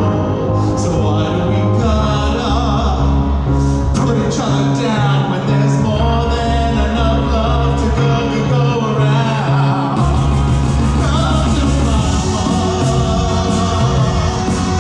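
A singer performing a pop ballad over a backing track played by a DJ, the voice gliding through held notes above a steady bass line.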